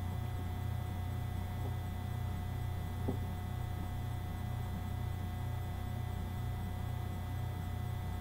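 Steady low electrical hum with a faint steady higher tone above it, and one faint click about three seconds in.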